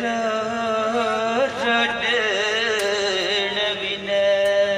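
A man singing a long, drawn-out wavering note of a Pashto song, in imitation of a singer's voice.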